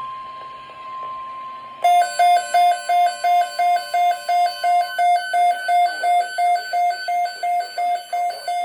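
NOAA Weather Radio 1050 Hz warning alarm tone, one steady pitch, stopping about five seconds in. About two seconds in, a weather alert receiver's alarm starts beeping loudly over it, about three beeps a second, announcing a severe thunderstorm watch.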